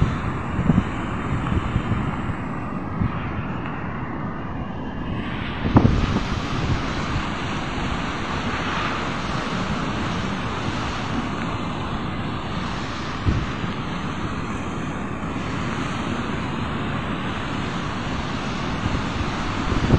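Steady roar of rough surf breaking on the shore, with wind buffeting the microphone in gusts. A single sharp bump about six seconds in.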